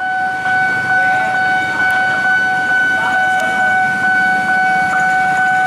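A steady single-pitched tone, held unchanged and the loudest sound throughout, over the low rumble of an approaching diesel locomotive.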